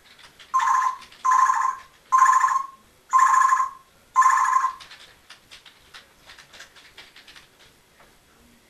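Congo African grey parrot mimicking an electronic beep: five even beeps, about one a second, followed by a few faint clicks.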